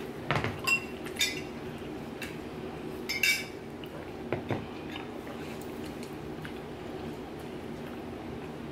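Chopsticks clicking against ceramic bowls and a glass jar clinking: about five short clinks in the first four or five seconds, two of them with a brief ring.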